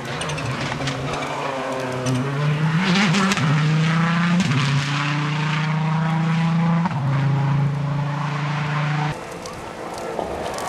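Rally car at full throttle, its engine climbing in pitch and stepping down several times as it shifts up through the gears, loud as it comes close. About nine seconds in the engine sound drops off suddenly, leaving a quieter, distant engine.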